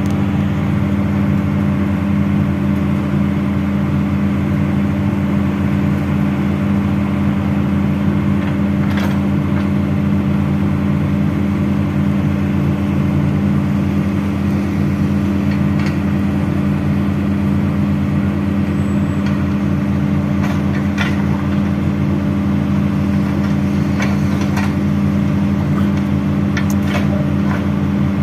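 Hitachi excavator's diesel engine running at a steady, unchanging speed, with a few faint knocks scattered through the second half.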